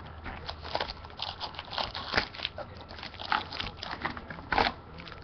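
Foil-wrapped trading card packs crinkling and clicking as they are pulled out of a cardboard hobby box and stacked on a table, with one louder clack about four and a half seconds in.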